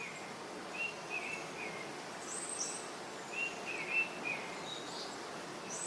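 Outdoor forest ambience: a steady hiss with small birds chirping, several short chirps scattered through it, some high and thin.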